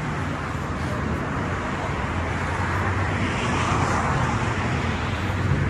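Steady city street traffic noise, with a louder vehicle sweep about three to four seconds in.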